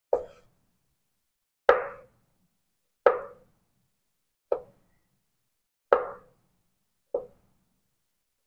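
Kitchen knife cutting through a block of boiled tempeh and knocking on a wooden cutting board: six separate chops, one about every second and a half.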